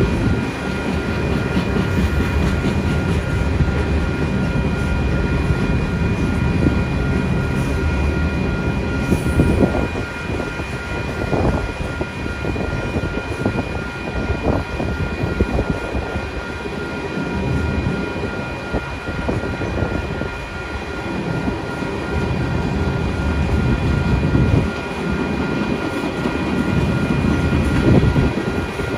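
Union Pacific tank cars rolling past a grade crossing: a steady rumble and clatter of steel wheels on the rails, with the crossing bell ringing over it as a steady, pulsing high tone.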